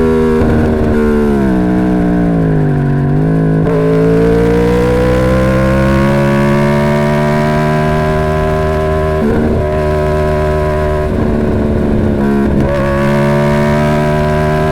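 2011 Yamaha YZF-R1's crossplane inline-four running through the stock exhaust. Its note drops about two seconds in, then climbs slowly and holds steady, with a few brief breaks later on.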